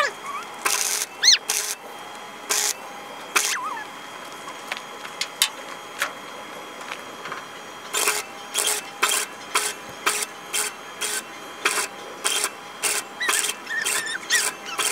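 Arc welder striking a run of short welds on the old truck's sheet-steel panel. It gives brief crackling bursts, spaced unevenly at first and then about two a second from around halfway. A few short high squeaky calls come in between.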